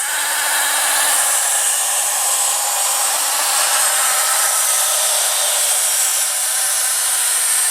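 Rocket-engine launch sound effect played through the Interactive Tracy Island toy playset's small speaker, a steady loud rushing noise with no bass, starting abruptly.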